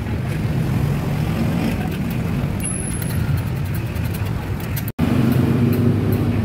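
Martabak frying in oil on a flat iron griddle, with light crackling and spattering of the oil over a steady low rumble. The crackling is thicker in the second half, and the sound drops out for a moment about five seconds in.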